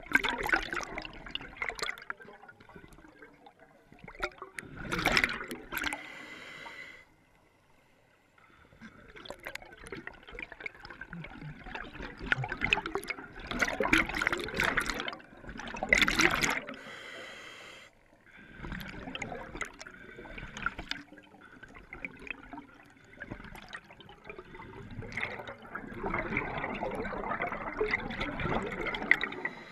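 Scuba diver breathing through a regulator underwater: long spells of exhaled bubbles, broken every several seconds by short pauses and the hiss of an inhalation.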